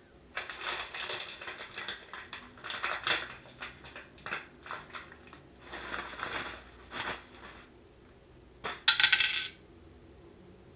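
Plastic snack bag of kaki no tane rice crackers crinkling and rustling in bursts as it is handled. About nine seconds in comes a short, loud clatter as the crackers spill onto a dish.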